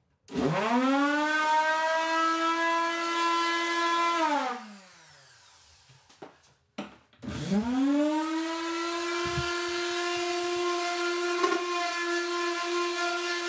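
Electric orbital sander switched on and spinning up with a rising whine, running steady as it sands wood, then winding down about four seconds in. After a brief pause with a couple of clicks, it starts again and spins up about seven seconds in, running steady through the rest.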